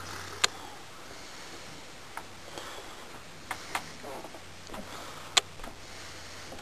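A few sharp clicks and knocks, scattered and irregular, over a steady low hum.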